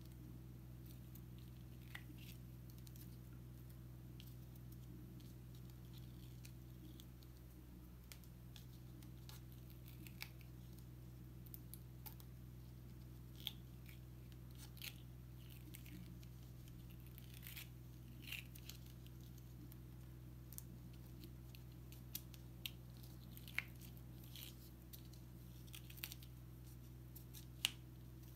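Faint, scattered small ticks and crackles of backing paper being picked at and peeled off an adhesive sand-art board, over a steady low hum.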